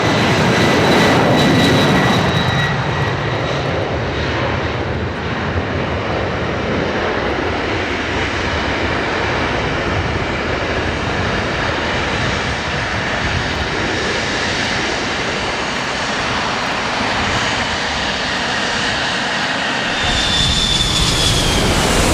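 Airliner jet engines running with a loud steady roar and a high whine that fades out in the first couple of seconds. Near the end it cuts to another recording with a high whine that falls slightly in pitch.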